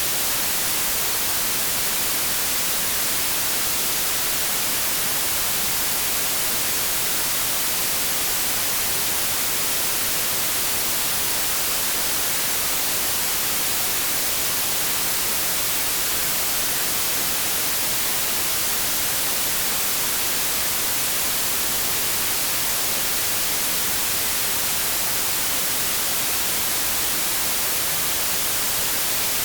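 Steady synthetic white noise: an even, unchanging hiss, brightest in the high frequencies.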